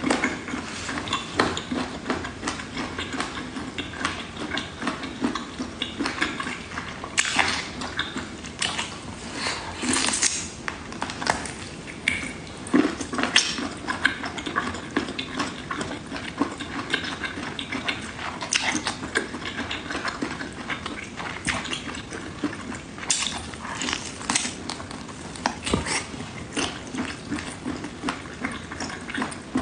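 Close-miked chewing of large octopus tentacles: wet, sticky smacking and irregular crackles from the mouth.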